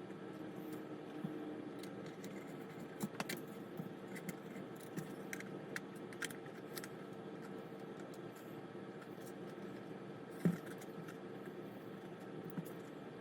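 Light clicks and taps of plastic model parts being handled and fitted together over a steady hum, with one louder knock about ten seconds in.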